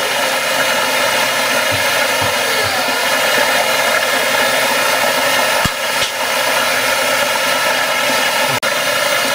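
Heat gun (construction hot-air gun) running on its maximum heat setting, a steady fan rush with a constant whine, blowing hot air onto deep-fried mushrooms to crisp them and drive off excess oil.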